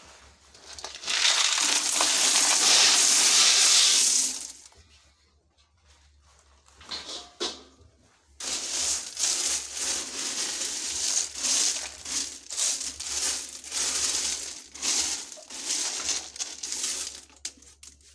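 Stone chippings being poured in: a steady rattling rush of stones for about three seconds, then after a pause a longer, uneven spell of tipped and shifting stones, many short scrapes and rattles, lasting about nine seconds.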